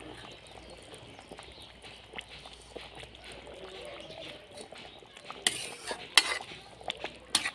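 Fish curry bubbling steadily in a metal karahi. Near the end a metal spatula stirs it and clanks against the pot three times.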